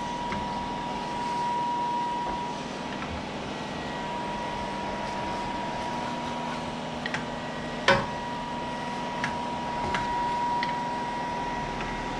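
Cooker hood extractor fan running with a steady whir and a thin whine, while a spatula stirs spaghetti in a pan with a few light clicks and one sharper knock about eight seconds in.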